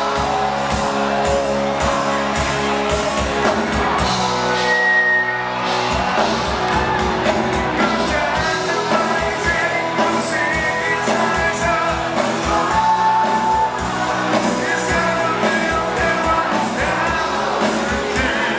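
Live rock band performing: a male vocalist singing over drums, electric bass and guitar. The drums and bass drop out briefly about four and a half seconds in.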